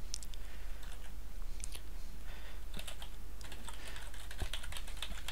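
Typing on a computer keyboard: a run of light, irregular keystrokes over a steady low hum.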